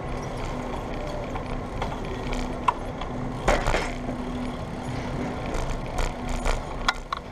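Steady wind and road noise from riding a bicycle along a city street, with traffic behind it and a low hum that comes and goes. A brief clatter about three and a half seconds in.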